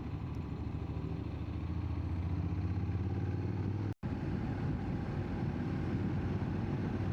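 Motorcycle engine running steadily while riding at road speed, with a brief dropout of the audio for an instant about halfway through.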